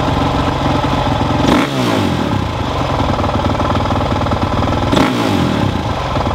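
2007 Honda CRF450R's single-cylinder four-stroke engine idling in neutral and blipped twice, about a second and a half in and again about five seconds in, each rev climbing and dropping back to idle. The revving is the check of the freshly installed Rekluse auto clutch's adjustment (free play gain at the lever).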